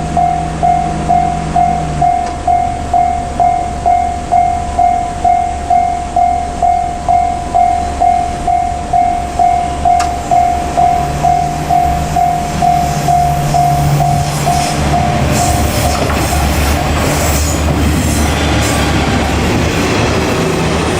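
Japanese level-crossing alarm bell dinging steadily, about twice a second. A pair of KiHa 47 diesel railcars approaches with its engine hum growing, then passes over the crossing with loud wheel clatter that drowns out the bell for the last five seconds.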